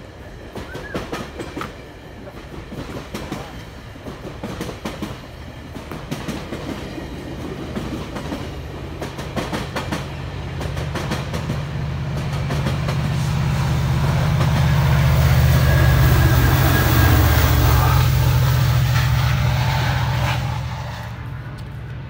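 GO Transit double-deck commuter train passing close by, its wheels clicking over the rails. It grows louder into a deep, steady diesel drone, then drops off about twenty seconds in.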